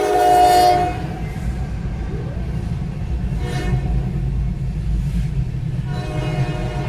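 Horn blasts over a steady low rumble. A long chord-like blast cuts off about a second in, a short blast comes midway, and another starts near the end.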